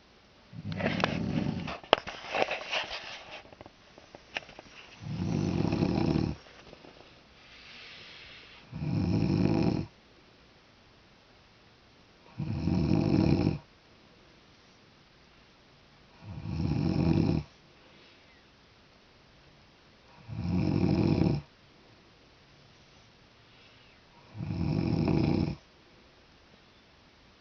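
A pregnant woman snoring: deep, regular snores about every four seconds, each lasting about a second. A short burst of rustling and clicks comes before them, about a second in.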